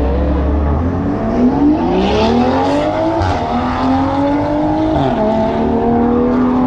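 A vehicle engine revving: its pitch climbs in long rises, drops sharply twice, then holds steady at a lower pitch.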